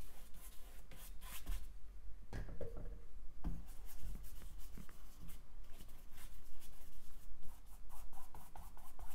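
Paintbrush bristles scrubbing paint onto a stretched canvas in many short, irregular strokes.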